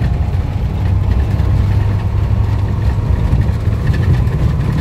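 Steady low rumble of a car's engine and tyres heard from inside the cabin while driving on a dirt track.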